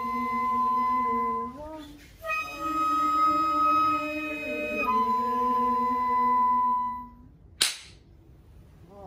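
Voices singing a slow shirabyoshi song, long held notes that step and bend in pitch, with a short breath break about two seconds in. The singing stops about seven seconds in, and a single sharp knock follows.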